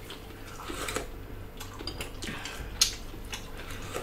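Eating sounds at the table: chewing and mouth sounds, with a metal spoon clinking and scraping on a ceramic plate in scattered small clicks, the sharpest near three seconds in.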